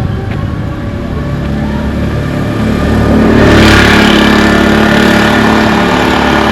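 A vehicle engine growing louder as it draws near, then running loud and steady close by from about three seconds in.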